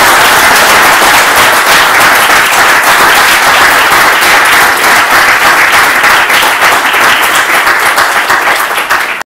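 Audience applauding, many hands clapping at once in a dense, steady patter that eases off a little near the end.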